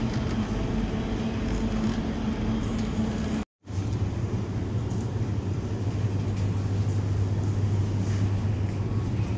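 Steady supermarket background: the hum and rumble of refrigerated display cases and ventilation. The sound drops out for a moment about three and a half seconds in, and the hum is lower-pitched after it.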